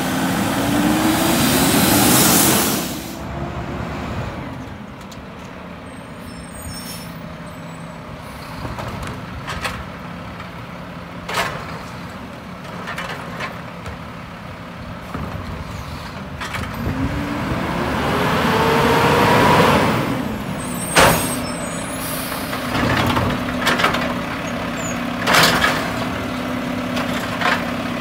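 Diesel engines of Mack garbage trucks with Heil automated side loaders. The first revs up as it pulls away, and later a second one revs up as it arrives, then gives an air brake hiss. Near the end come several loud clunks and bangs from the side-loader arm lifting and dumping a trash cart.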